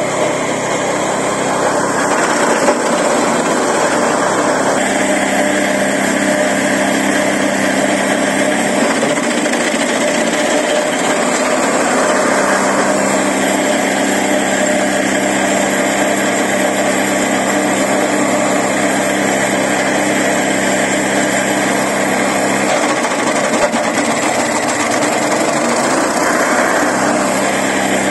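Small petrol engine of an ARPAL branch chipper running steadily at high speed, its note shifting a few times as branches are fed through and cut.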